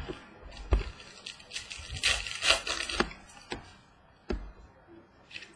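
Trading cards and packs being handled on a table: a few light knocks and taps, with a scraping, rustling stretch about two to three seconds in as a stack is slid and the next pack is opened.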